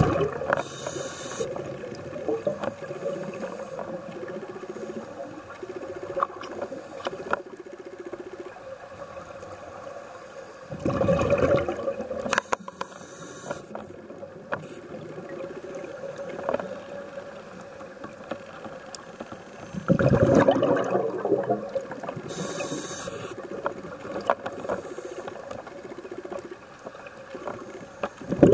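Scuba diver breathing through a regulator underwater: two slow breaths, each a rush of exhaled bubbles for a second or two, then a short high hiss of inhaled air, about ten seconds apart, over a faint steady underwater crackle.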